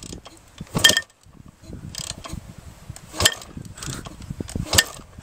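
Honda CR500 two-stroke single being kick-started: four kicks, each with a sharp clack and the ratcheting rattle of the kickstart mechanism, and the engine does not catch.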